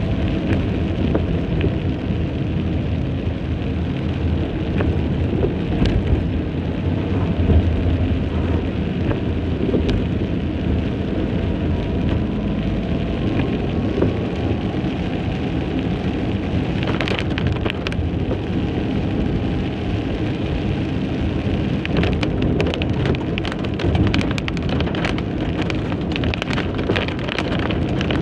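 Heavy rain drumming on a car's roof and windshield, heard from inside the cabin over the steady low rumble of the car and its tyres on the wet road. Sharp raindrop hits come thicker from about two thirds of the way in.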